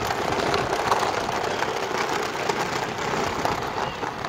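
Battery-powered children's ride-on ATV driving over concrete paving: a steady noisy drone from its electric gear motor, with many small clicks and rattles from its plastic wheels and body.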